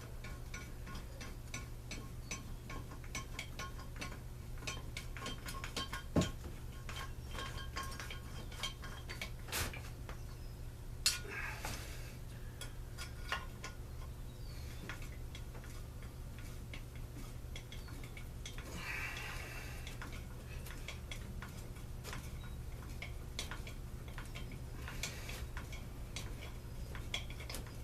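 Small metal parts and hand tools clicking and clinking as a Stihl BG 56 C leaf blower's muffler is fitted back on, with a louder knock about six seconds in and a metallic clink that rings briefly about eleven seconds in. A steady low hum runs underneath.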